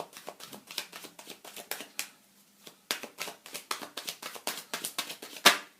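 Tarot cards being shuffled by hand: a quick run of crisp card clicks, pausing briefly about two seconds in, with one sharper snap near the end.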